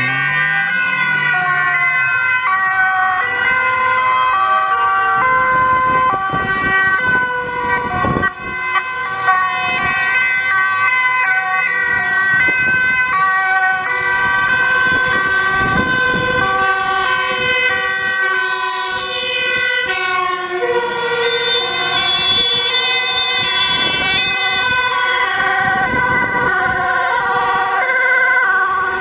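Sirens of several emergency vehicles (ambulances, Red Cross ambulances, police and a fire engine) sounding at once as they pass on an urgent run, their alternating-pitch tones overlapping.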